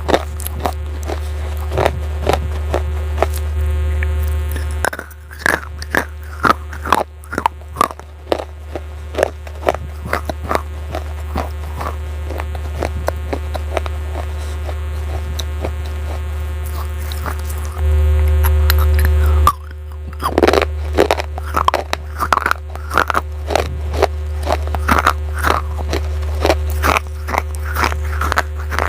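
Baked clay pot pieces being bitten and chewed close to the microphone: a quick, irregular run of sharp, dry crunches. A steady low hum and faint background music sit underneath.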